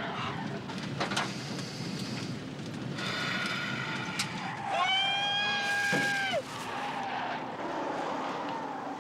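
Pickup truck driven fast, its engine and road noise running steadily, with the tyres squealing in a long screech about five seconds in.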